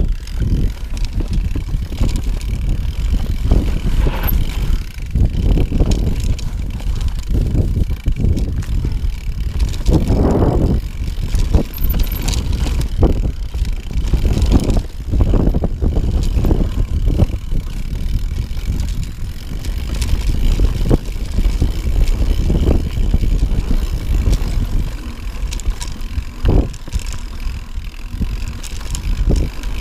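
Mountain bike riding over a rocky trail: tyres rolling over stones, with a steady low rumble and frequent knocks and rattles from the bike.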